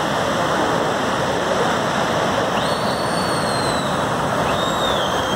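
Steady rushing roar of a formation of military jets flying overhead, blended with breaking surf. About halfway through, a thin high engine whine drifts slightly down in pitch twice.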